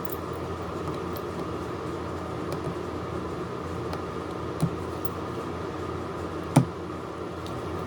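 Steady machine hum, like a fan, with two light clicks or taps partway through, the second louder.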